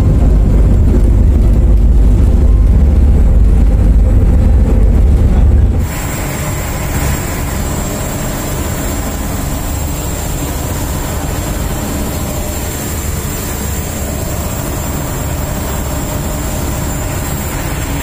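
Passenger ferry's engines droning loudly in a deep, steady rumble inside the seated cabin. About six seconds in it changes abruptly to a quieter, even rushing hiss of wind and churned wake water on the open stern deck, with the engine still under it.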